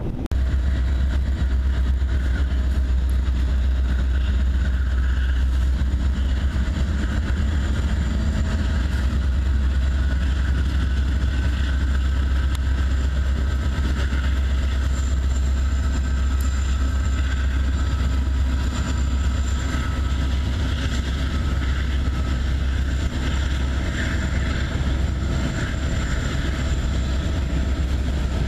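Norfolk Southern freight train's diesel locomotives (a GE Dash 9-40CW leading, an EMD SD60I and a GE Dash 9-40C) running across a steel girder bridge: a loud, steady low engine rumble with the noise of the train moving over the bridge.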